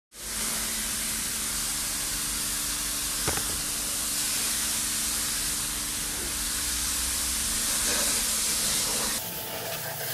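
Pressure washer spraying a car: a loud, steady hiss of the water jet with a low hum underneath, dropping away about nine seconds in.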